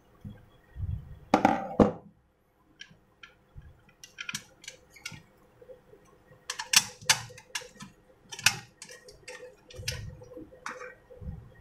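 Plastic and metal parts of a dry clothes iron being handled and fitted together: a run of sharp clicks, taps and knocks, with a louder scraping rattle about a second and a half in.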